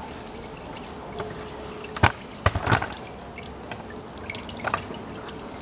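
Old CVT fluid trickling and dripping out of the open drain plug of a Nissan Murano Z51's transmission pan as it drains. A few sharp clicks cut in, the loudest about two seconds in.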